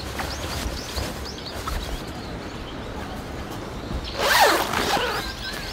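Zipper of a one-touch pop-up tent being pulled, a zip run of about a second and a half starting some four seconds in.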